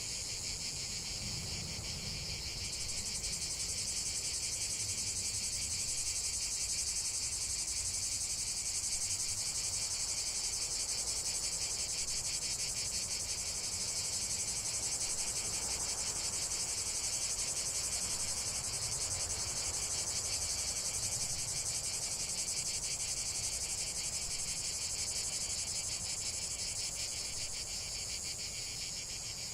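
Dense insect chorus: a continuous high-pitched trilling of many insects together, thickening about three seconds in.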